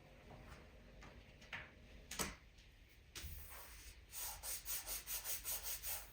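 Quick back-and-forth rubbing strokes on a surface, about four a second, beginning about four seconds in, like hand sanding. A single knock comes about two seconds in.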